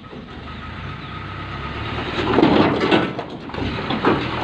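Dump truck's diesel engine running as the truck pulls forward with its bed still raised after tipping rocks. It grows louder about two seconds in, with clanking and rattling from the body and open tailgate.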